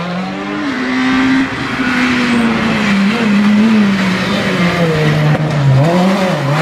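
Rally car engines revving hard as the cars pass at speed on a tarmac stage, the pitch climbing and dropping with each gear change, with a quick drop and blip near the end.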